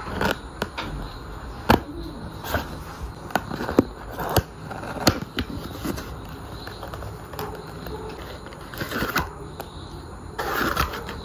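Cardboard box of Kinder Surprise eggs being cut open with scissors and its flaps pulled open and handled: a run of sharp clicks and taps with cardboard rustling in between.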